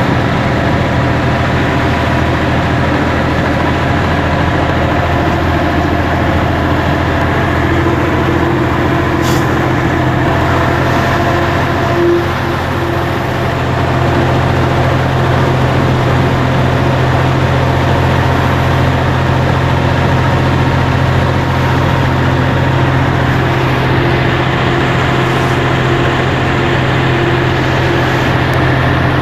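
FNM 180 truck's diesel engine running steadily under way on the road, a constant low rumble.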